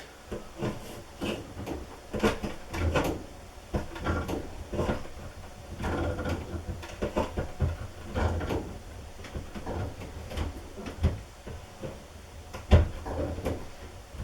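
Channel-lock pliers tightening a water hammer arrestor onto a washing machine tap: a run of irregular small clicks, knocks and scrapes of the pliers on the fitting, with one sharper knock near the end.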